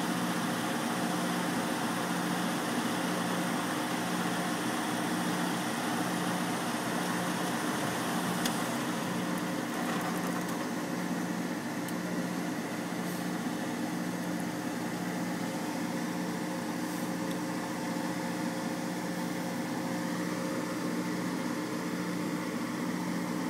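Truck engine idling steadily, heard from inside the cab, with a low hum that pulses evenly about once a second.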